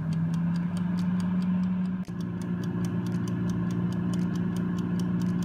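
Wonderchef air fryer running: its fan motor hums steadily while the wind-up mechanical timer ticks rapidly and evenly, counting down a freshly set cooking time. The hum drops out for an instant about two seconds in, then carries on.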